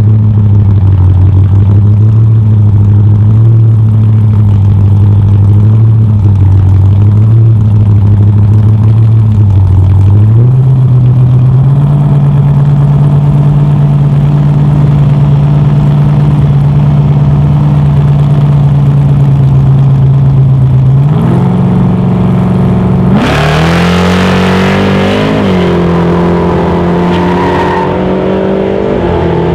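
Drag-racing cars' engines idling at the starting line with a slightly wavering note, brought up to a higher steady hold about ten seconds in. About 23 seconds in they launch at full throttle, revving hard and rising in pitch as they pull away.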